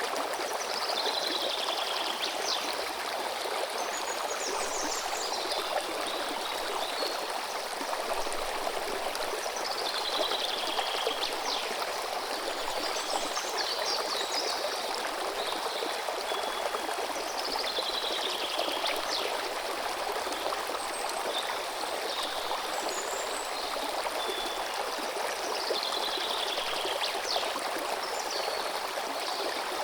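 A stream running steadily over stones. A songbird sings a short falling phrase about every eight seconds, with higher, shorter calls between.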